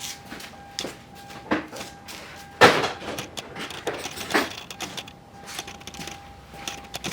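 Scattered knocks and clatter of hard objects being handled, with one loud knock a little under three seconds in, over a faint steady hum.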